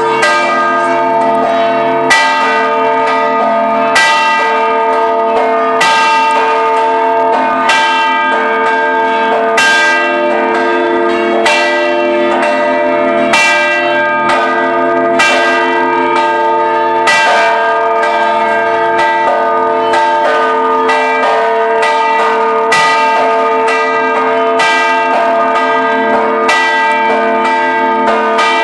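Church bells of the Ħaż-Żabbar parish church ringing a procession peal. Several bells sound together in a continuous wash of overlapping ringing, with a fresh strike standing out about every two seconds.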